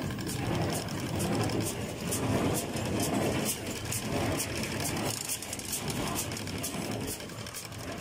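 Fendt 310 tractor's diesel engine running steadily, with light crisp ticks over it.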